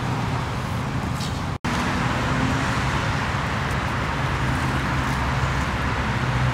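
Steady road traffic noise, a constant low hum of passing cars, which drops out for an instant about one and a half seconds in.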